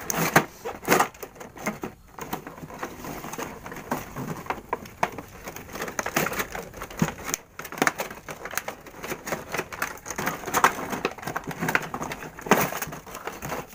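Clear plastic blister packaging and a cardboard box being handled and slid apart, making irregular crinkling, crackling and clicking throughout.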